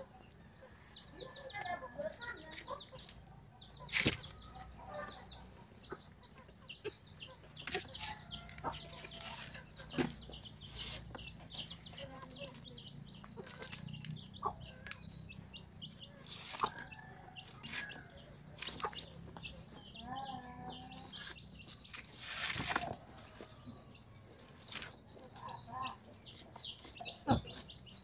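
Chickens clucking now and then over a steady high chirping of about three chirps a second, with a few sharp knocks scattered through.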